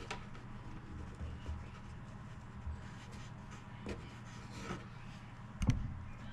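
Faint rubbing and rustling of hands working pieces of tape around the wires, over a steady low hum, with a single short knock a little before the end.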